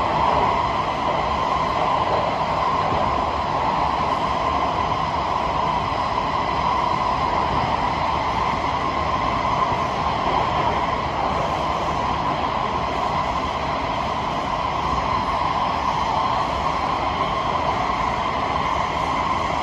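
Interior noise of a Kawasaki–CSR Qingdao Sifang C151B metro car running at steady speed: a constant rumble of wheels on rail with a steady whine over it.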